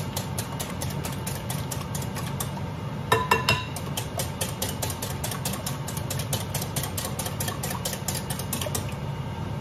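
Wire whisk beating eggs in a glass bowl: a quick rhythmic rattle of about five strokes a second, with a few louder ringing clinks of the whisk against the glass about three seconds in.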